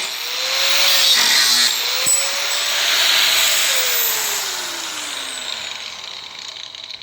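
Bauer 4.5-inch 8-amp angle grinder running with a loud grinding hiss. Its motor cuts out briefly about two seconds in, runs up again, then spins down with a falling whine over the last few seconds.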